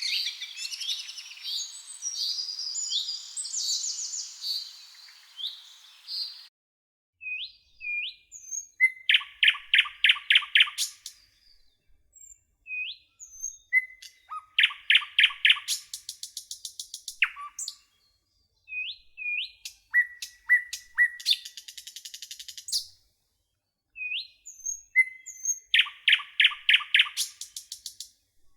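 Songbirds: a dense chorus of overlapping chirps that cuts off abruptly about six seconds in. A bird song follows four times at intervals of about five seconds, each a single note leading into a fast trill lasting about two seconds, with short chirps in between.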